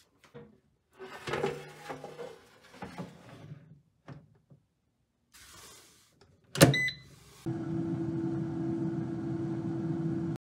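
Kalorik air fryer: its basket rattles and scrapes as it is handled, then latches shut with a sharp click about six and a half seconds in, followed by a short high tone. About a second later the fan starts and runs with a steady hum for the last three seconds.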